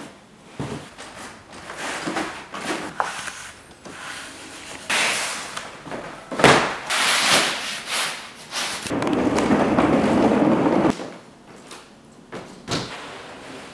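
Handling noises: wooden stretcher bars knocking, then a large painted canvas rustling and flapping as it is lifted and folded, with a longer rustle of about two seconds past the middle. A few knocks and thuds follow near the end.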